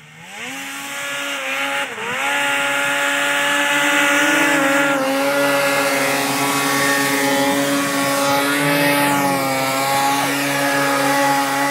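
Polaris IQ 600 snowmobile engine revving up hard, dipping briefly about two seconds in, then held at high steady revs as the sled rides a long wheelie on its track.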